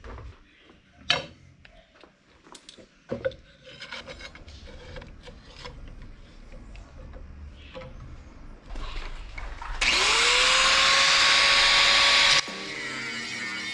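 Clicks and knocks of a steel knife blank being handled and clamped in a bench vise, then an angle grinder switched on about ten seconds in, its whine rising as it spins up and then running steadily. Near the end the grinder cuts off and guitar music comes in.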